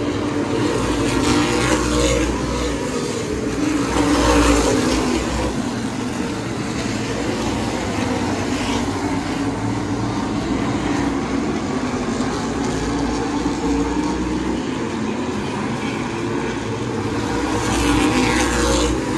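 Open-wheel modified race cars running around the oval, their engines swelling as cars pass the grandstand, loudest about four seconds in and again near the end.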